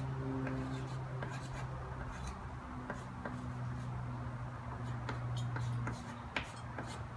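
Chalk writing on a blackboard: short taps and scratches as letters are chalked. A steady low hum runs underneath and stops about six seconds in.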